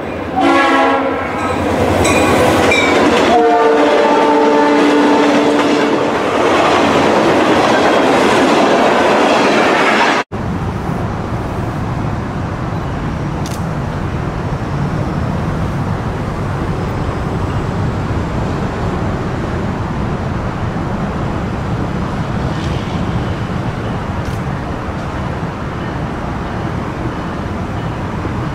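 A train's locomotive horn blows two long blasts, each a chord of several notes, then the loud rush of the train passing at speed, which cuts off suddenly about ten seconds in. After that comes a steady low rumble of background noise with no distinct event.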